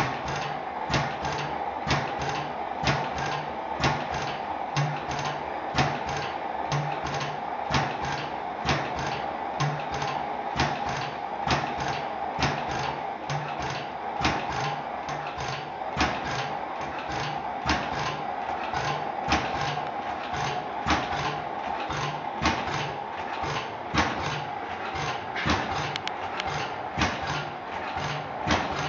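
Blaisdell engine-compressor running at a steady slow speed: a strong regular beat about once a second with lighter clicks in between, over a steady mechanical hum.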